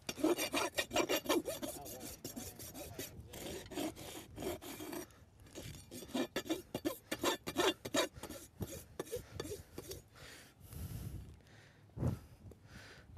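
Farrier's rasp worked back and forth in quick rough strokes, rounding off an edge. The strokes pause near the end, where a couple of dull knocks are heard.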